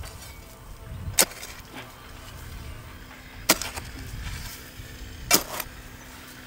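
Three sharp strikes about two seconds apart, each ringing briefly, over a faint steady hum.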